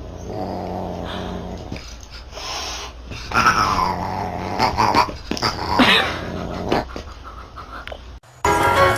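A dog growling steadily for a second or two, then a few higher calls that fall in pitch. The sound breaks off suddenly near the end.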